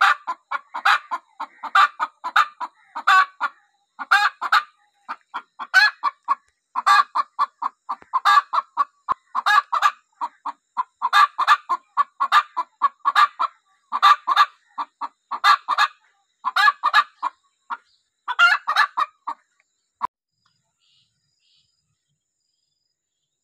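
Hen cackling, with quick bursts of clucks about once a second that stop about 20 seconds in.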